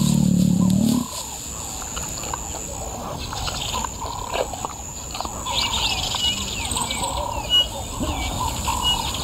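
A loud low voice-like sound that cuts off about a second in. After it, small birds chirp and call repeatedly in short high notes over a steady outdoor background.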